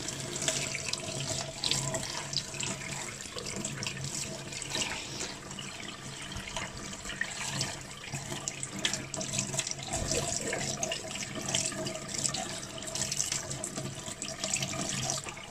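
Tap water running steadily into a stainless-steel sink, splashing over a soapy paintbrush and the fingers rinsing its bristles.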